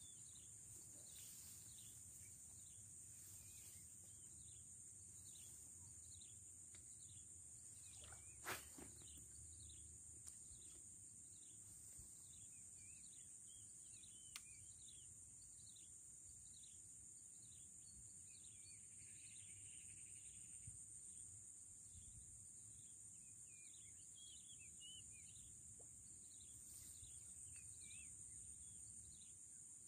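Faint swamp ambience: a steady high-pitched insect drone with many short falling chirps repeating throughout. A single sharp click comes about eight and a half seconds in.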